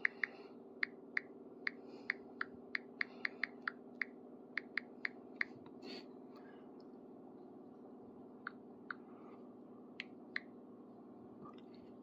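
Smartphone on-screen keyboard clicking as a name is typed: a quick run of sharp key clicks for about five seconds, then a few scattered taps. A faint steady hum runs underneath.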